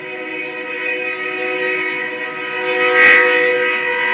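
Locomotive multi-chime air horn sounding one long held blast, a steady chord of several tones. A short sharp noise cuts across it about three seconds in.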